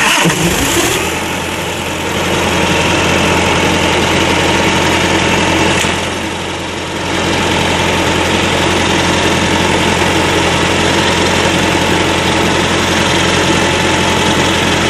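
A trailer reefer unit's diesel engine starts abruptly and settles into steady running after its fuel system was primed following a run-out of fuel. It sags briefly about six seconds in, then picks back up.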